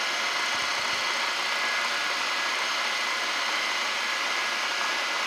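Milling machine spindle running steadily with a high, even whine while it spins an edge finder against a steel shaft to locate its edge.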